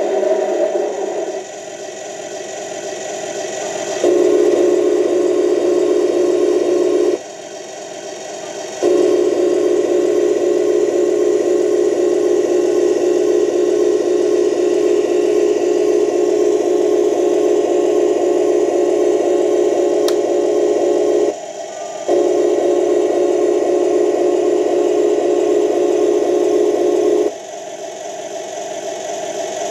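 Turret traverse of a Torro 1:16 RC Leopard 2A6 tank: a steady electric whine in several long runs. It switches off briefly about 7 seconds and about 21 seconds in, and again near the end, leaving the model's engine sound underneath.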